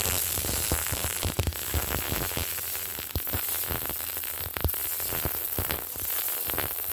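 MIG welder arc running an uphill weld on a T-joint with a side-to-side weave: a steady sizzling hiss with rapid, irregular crackling pops from the wire arc.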